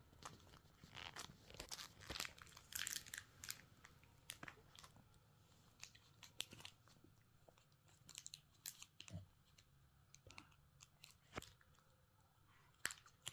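Chocolate being bitten and chewed close up: short crisp crunching crackles, coming thick and fast for the first few seconds, then spacing out.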